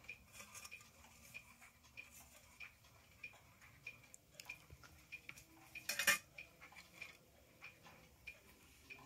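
Faint, scattered light clinks and taps from a loose metal clock dial with a brass bezel being handled, with one louder knock about six seconds in.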